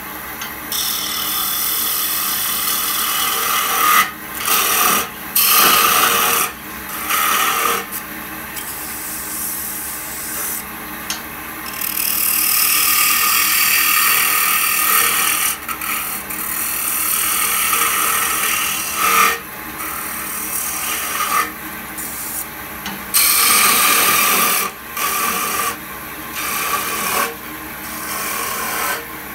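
Wood lathe running while a hand-held turning tool cuts into a spinning wooden goblet blank, the cutting hiss starting and stopping every second or two as the tool makes repeated passes over a steady motor hum.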